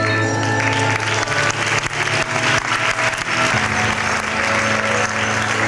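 Audience applauding over music with held notes and a steady bass line; the clapping starts about half a second in.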